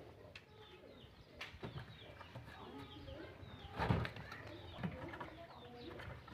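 Birds chirping in the background, many short calls throughout, with one dull thump about four seconds in.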